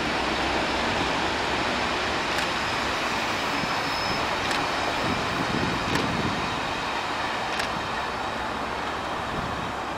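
A class 37 diesel locomotive's English Electric V12 engine running as it draws away, then its train of coaches rolling past with a steady rumble. A few faint clicks come from the wheels.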